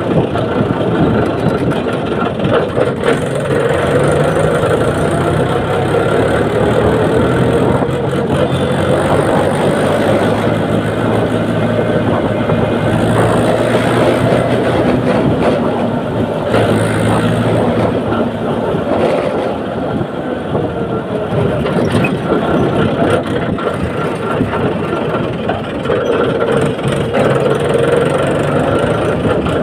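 Mahindra tractor's diesel engine running steadily under way, heard close up from the driver's seat.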